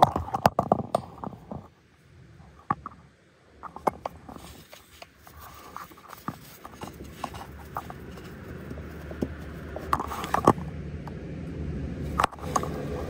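Handling noise from a phone moved about inside a combine: irregular clicks, knocks and scrapes. A low steady rumble builds from about halfway through, with a cluster of louder clicks near the end.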